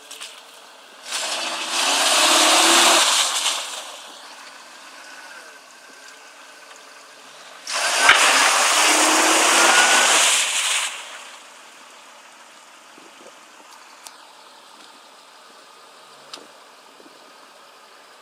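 Jeep Cherokee XJ stuck in mud, its engine revved up twice for about three seconds each time while the wheels spin and fling mud and water. Between and after the two pushes the engine idles quietly.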